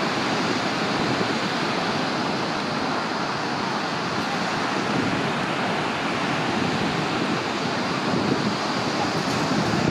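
Lake waves breaking steadily on the beach, with wind noise on the microphone.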